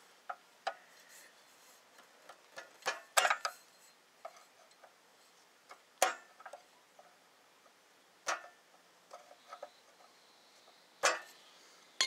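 Scattered metallic clicks and clinks of hand tools working on a stuck carburetor float bowl, with sharper knocks about 3, 6, 8 and 11 seconds in.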